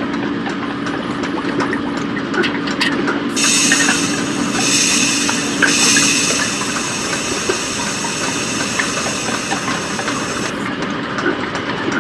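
Industrial machinery sound effects for an animation: a steady mechanical clatter of small clicks and clanks over a hum that stops about seven seconds in. Steam hisses from about three and a half seconds in, for some three seconds.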